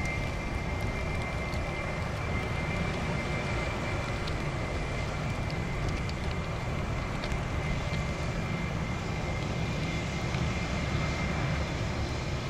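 Jet engines of a Boeing 787-9 airliner, Rolls-Royce Trent 1000s, running at approach power on final approach: a steady rumble, with a high whine that fades at the start.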